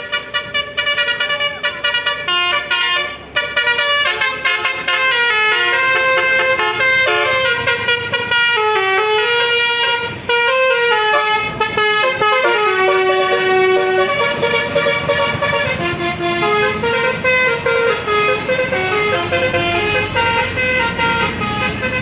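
Basuri telolet horns on buses playing tunes: quick runs of multi-tone horn notes stepping up and down in pitch, over the run of a bus engine.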